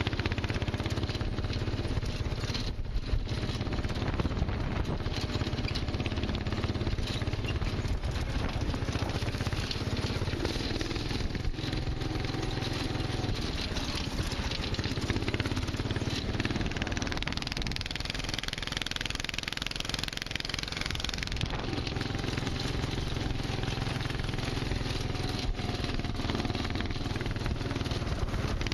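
A go-kart's Predator 420cc single-cylinder four-stroke engine, fitted with a header pipe, running under load as the kart drives over rough grass. The engine speed rises and eases off, and it is a little quieter for a few seconds past the middle.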